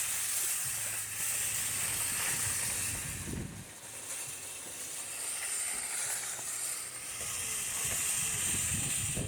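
Steady road and engine noise inside a moving car: a continuous hiss with a low hum underneath that fades a few seconds in.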